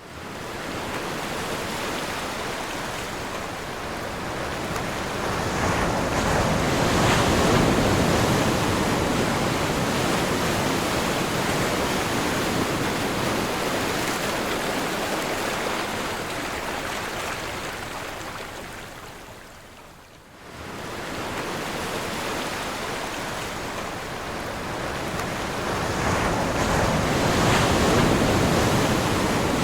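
Sea waves breaking and washing on a shore: a steady rushing surf that swells and ebbs, loudest about 7 seconds in and again near the end. About twenty seconds in it fades almost away for a moment, then comes back abruptly.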